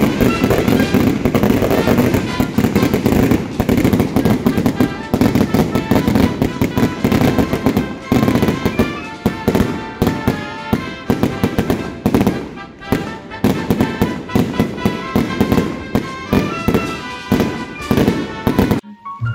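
Fireworks display going off in a rapid, dense barrage of bangs and crackles, with music playing alongside; it cuts off suddenly near the end.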